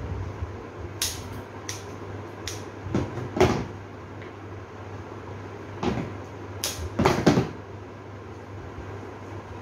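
Sharp clicks and knocks from arranging cut roses: scissors snipping stems and being set on the table, and stems handled at a floral-foam block. They come in two clusters, the loudest about a third of the way in and again about three quarters through, over a steady low hum.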